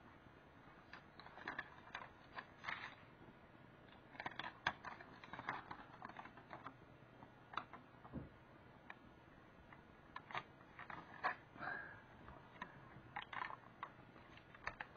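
Aluminum foil crinkling faintly in short, scattered crackles as it is folded and pressed down by hand.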